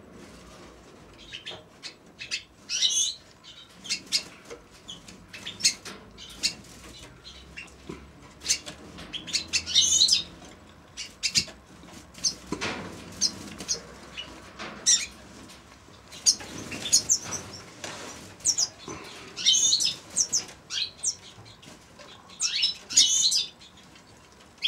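Small aviary finches, siskins among them, giving short bursts of quick, warbling twitters and chirps, about ten bursts spread across the stretch. Wing flutters and sharp clicks come between the calls.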